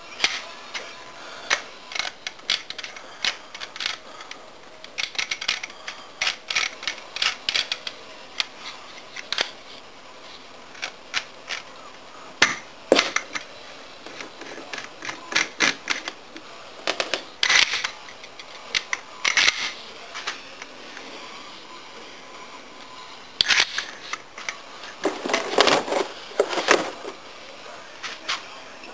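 Scattered clicks, knocks and scrapes of a new Mossberg 500 20-gauge pump shotgun being handled and put together, with a denser run of clatter near the end.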